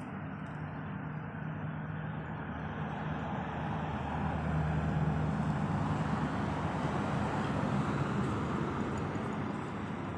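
Road traffic: a car's engine hum and tyre noise, swelling about four seconds in and easing off near the end as it passes.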